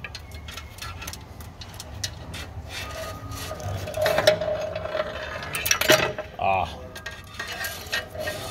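Metallic clicks, clinks and scraping as a spring-loaded claw pickup tool works down inside a forklift's steel frame to fish out a dropped switch bracket, with brief ringing clinks about four and six seconds in.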